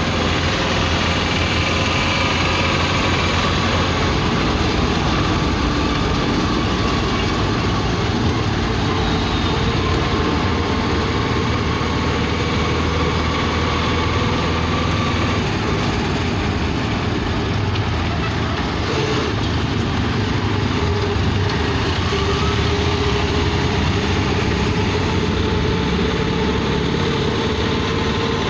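Motor vehicle engine running steadily with road noise, a continuous low rumble with faint tones that drift slowly in pitch.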